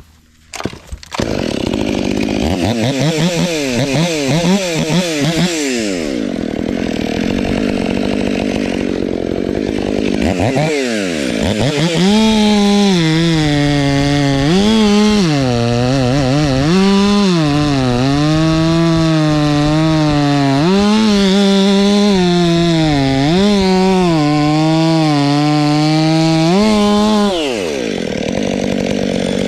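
Ported Stihl 500i fuel-injected two-stroke chainsaw at full throttle cutting through wood. Its revs dip under load and recover again and again, and it falls back off the cut near the end.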